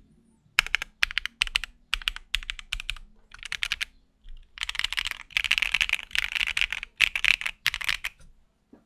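Typing on AKKO V3 Cream Yellow Pro linear mechanical switches in a High65 V2 keyboard, a clacky keystroke sound. Short bursts of keystrokes are followed by a fast, continuous run of typing in the second half.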